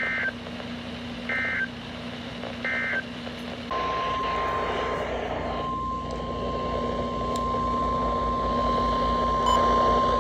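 Emergency Alert System broadcast over NOAA Weather Radio: three short warbling bursts of SAME digital data about a second apart, then the steady 1050 Hz warning alarm tone, which starts a little over three seconds in and holds. The tone marks the start of a new alert, with radio hiss and a low hum underneath.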